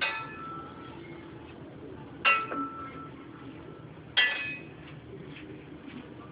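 Three sharp clinks, about two seconds apart, each ringing briefly at a few clear pitches like glass or small metal.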